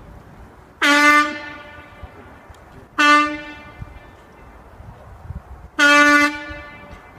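A signal horn sounds three short blasts about two and a half seconds apart, each one a single steady tone: the blasting-site horn signal at a chimney demolition.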